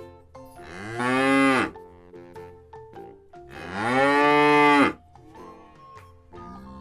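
Cow mooing twice: two long calls about three seconds apart, each rising and then falling in pitch.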